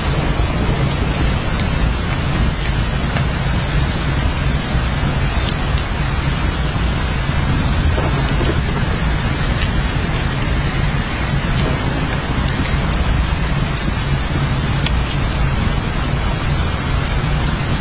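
Steady heavy rain, a dense even hiss with scattered drop ticks over a continuous low rumble.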